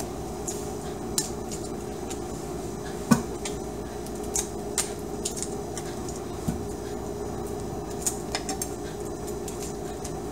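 Raw shrimp being peeled by hand over a stainless steel colander: scattered light clicks and taps as shrimp and shells knock against the metal, with one sharper knock about three seconds in, over a steady low hum.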